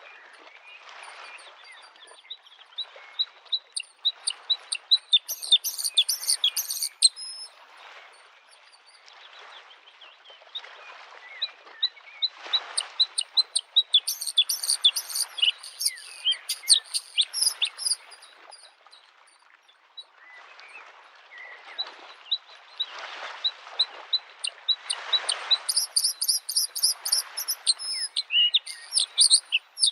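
Bluethroat singing in three bouts of fast, repeated high notes, over small lake waves lapping at the shore in a steady rhythm.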